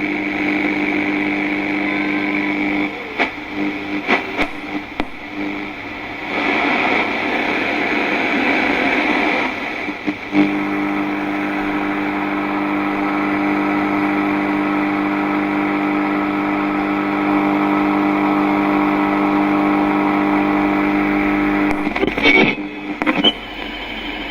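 Analogue radio being tuned: a steady buzzing whine that breaks up into clicks and then a few seconds of static hiss, locks back onto a steady tone for about ten seconds, and crackles near the end.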